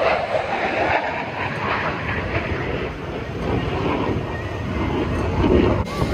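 Aircraft engine noise, a steady rough rumble, broken off abruptly near the end.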